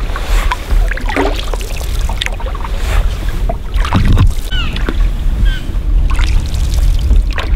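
Canoe paddling: a wooden paddle dipping and pulling through calm lake water in irregular strokes, with splashes and drips, over a steady low rumble.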